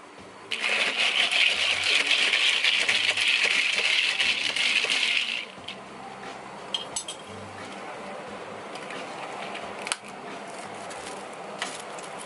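Ice cubes in a plastic cup of iced coffee clinking and crackling loudly for about five seconds. Then it goes quieter, with light ticks and one sharp click near the end as a plastic lid is snapped onto the cup.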